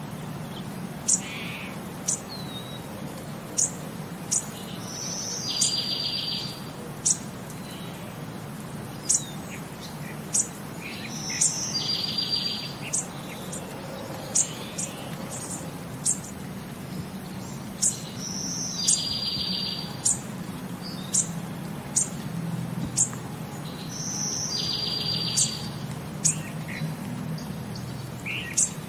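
Birds chirping in a looped background ambience track. Short, sharp, high chirps come every second or two, and a buzzy trill repeats about every six or seven seconds, over a low steady hum.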